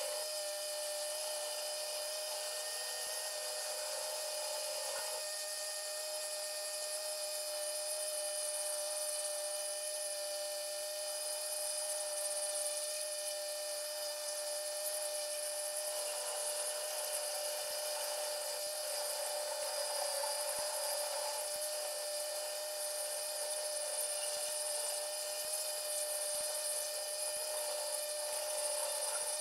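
Handheld rotary carving tool running steadily at high speed, its burr grinding into a small wooden rose-petal piece to scallop it out.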